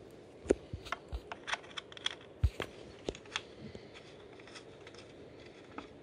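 A scattered run of small sharp clicks and taps with a couple of dull knocks, from ring terminals, a bolt and a washer being handled and fitted by hand inside a 3D printer's metal power-supply bay. The clicks bunch in the first three seconds and then stop.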